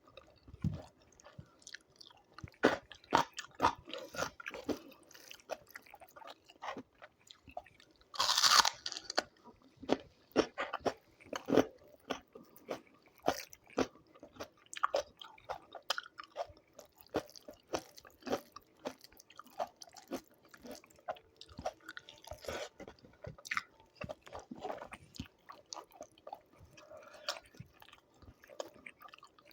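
A person eating close to the microphone: repeated crisp crunching and chewing of a rice-and-chicken meal with raw salad vegetables, with one louder crunch about eight seconds in.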